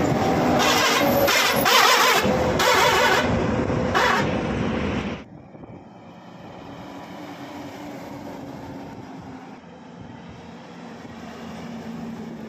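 Loud, gusting rushing noise for about the first five seconds, cutting off suddenly. After it, heavy Tata diesel trucks running steadily with tyre noise as they drive past on the highway, the engine note growing a little as one comes close near the end.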